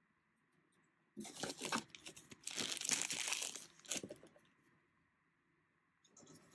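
Plastic packaging wrap crinkling and rustling as hands pull an item out of it, for about three seconds from a second in, then a brief lighter rustle near the end.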